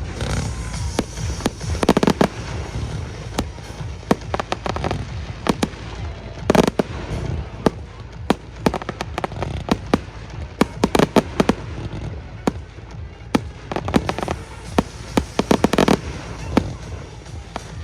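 Fireworks going off: a steady stream of sharp bangs, with several dense clusters of rapid crackling, over a low rumble and background music.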